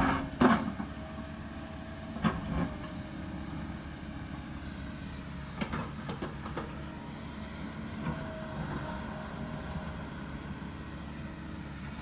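Kobelco 220 excavator's diesel engine running steadily as it digs into a hillside, with sharp knocks from the bucket striking soil and rock about half a second in, around two and a half seconds in, and again around six seconds in.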